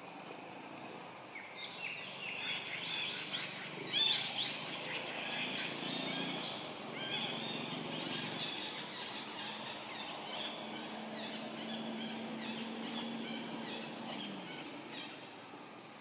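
Series of rapid, high chirping calls, starting about a second and a half in, loudest around four seconds in and thinning out near the end, over a steady insect drone.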